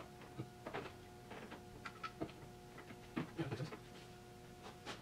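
Scattered light clicks and taps of metal parts being handled as an alternator is fitted onto its engine mounting bracket with spacers, over a faint steady hum.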